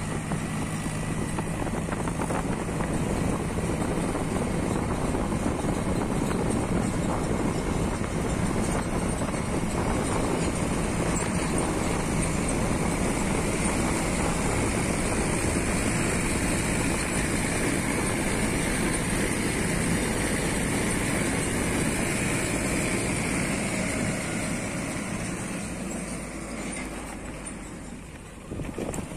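Engine of a moving vehicle running steadily under wind and road noise, fading out over the last few seconds.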